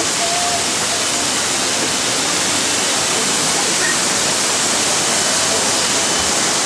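Steady rush of falling and spraying water from a children's water-play structure with a big tipping bucket.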